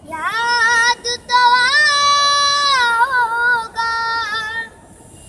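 A young boy singing solo without accompaniment: a slow phrase with wavering ornaments and one long held note in the middle, breaking off about four and a half seconds in.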